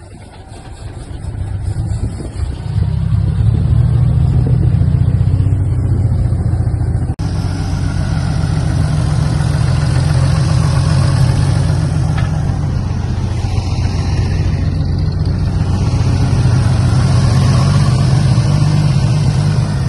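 Inline flathead six-cylinder boat engine running, rising over the first few seconds and then holding steady: it now runs after a tune-up for spark plugs so wet they would not spark.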